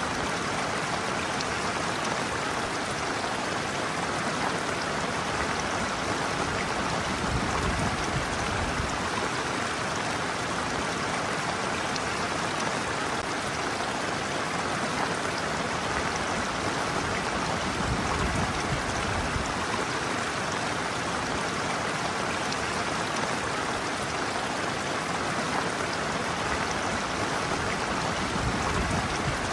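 Shallow stream water running steadily over and around feet standing in it: a continuous rushing and bubbling with no pauses.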